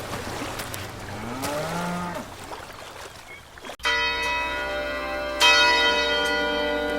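A bell is struck about four seconds in and again a second and a half later, each strike ringing on with many steady overlapping tones; in a 25/5 pomodoro it marks the end of the 25-minute study block. Before it, under a steady noisy wash, there is a low drawn-out call that rises and falls.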